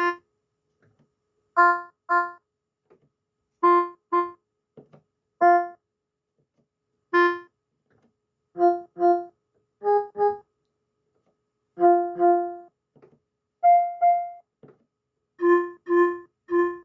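Electronic keyboard playing short notes on a built-in instrument voice, mostly in quick pairs every couple of seconds. Most notes sit on the same pitch, with a few slightly higher ones in the middle.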